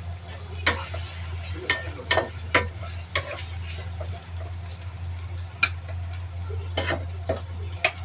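Spatula knocking and scraping against a pan as vegetables are stir-fried, about eight irregular strikes over a faint sizzle, with a steady low hum underneath.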